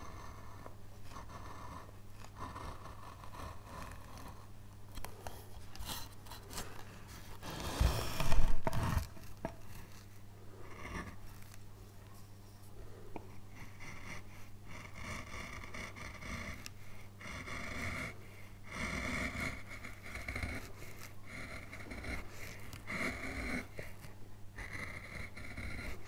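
A hand carving chisel pares and scrapes pale wood in short repeated strokes, over a steady low hum. About eight seconds in there is a louder knock and rustle of handling.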